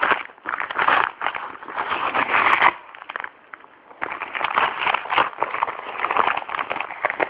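Parcel packaging being pulled and torn open by hand, crackling and scraping in irregular bursts, with a short lull about three seconds in.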